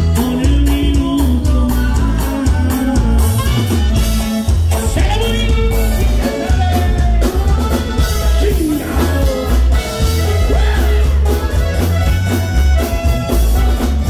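Conjunto band music with a singing voice over a strong bass line and a steady, even beat.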